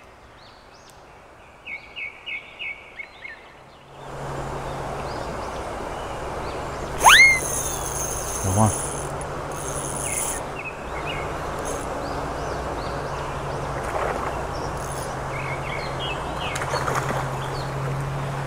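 A quick series of small bird chirps over a quiet background, then from about four seconds in a steady rush of flowing stream water, with one sharp rising call about seven seconds in.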